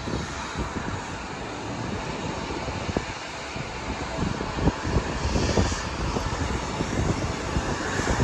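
Distant jet airliner engines running across the airfield, a steady rushing noise, with wind buffeting the microphone in irregular low gusts.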